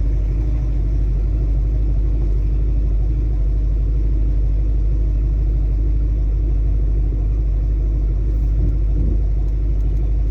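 Ford Mustang Mach 1's V8 engine running steadily as the car is driven, a deep, even rumble heard from inside the cabin.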